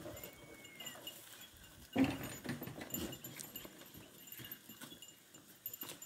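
A goat bleats loudly about two seconds in, with a weaker bleat just after, among scattered small knocks of a goat herd moving about.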